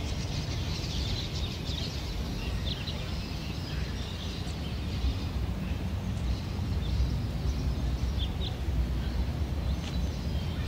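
Outdoor park ambience: a steady low rumble with scattered short bird chirps.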